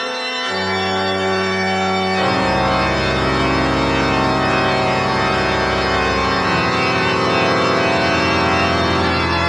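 Spooky keyboard music: low, sustained organ-like chords held for a few seconds each, shifting to a new chord about half a second in, again after about two seconds, and once more near the end.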